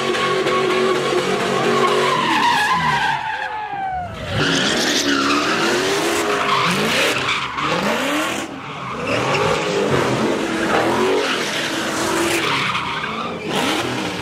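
Car engine held at high revs while the tyres spin and squeal through donuts, with thick tyre noise. About four seconds in the revs drop, then rise and fall over and over as the driver keeps working the throttle.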